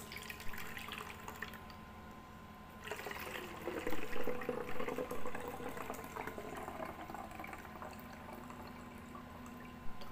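Mint-leaf infusion pouring from a glass jar through a plastic funnel into a plastic spray bottle, a trickling fill that gets louder about three seconds in. There is a brief click near the end.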